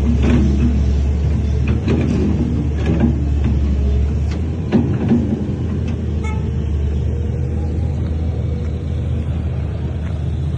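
Heavy earthmoving machine's diesel engine running steadily with a deep drone, with several metallic clanks in the first five seconds and a brief squeal about six seconds in.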